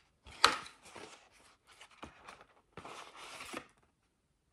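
Paper sheets and inserts rustling and sliding as they are handled on a table, with a sharp click about half a second in and a longer rustle about three seconds in.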